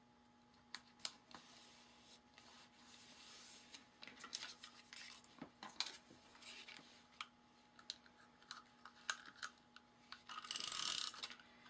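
Patterned paper strips and card stock being handled and pressed down by hand: scattered light taps and rustles, with a louder rasping rub of paper near the end.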